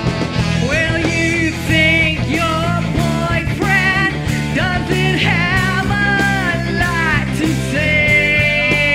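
Live rock band playing, with drums, steady bass notes and a bending lead melody line that ends on a long held note near the end.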